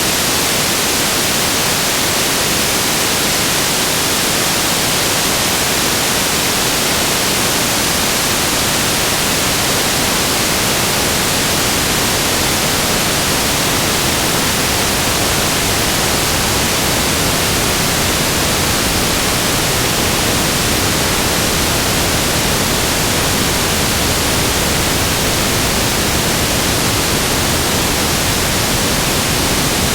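Steady static hiss, an even noise with no tones, clicks or changes, heaviest in the upper treble.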